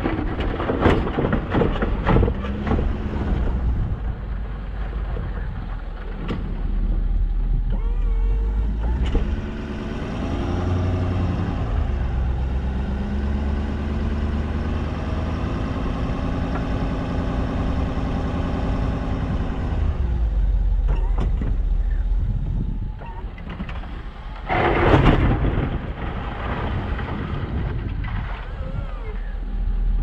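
Plow truck's engine running under load. Its pitch rises about ten seconds in and holds steady, with loud rushing noise near the start and again about 25 seconds in.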